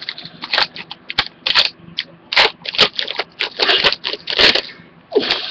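A sealed trading-card pack's wrapper being torn and peeled open by hand: a run of irregular crinkling, tearing crackles.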